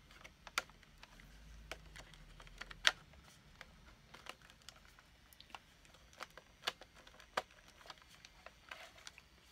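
Scattered small plastic clicks and taps of a wide-scope viewfinder attachment being fitted onto a Panasonic G3 VHS-C camcorder, the sharpest click about three seconds in.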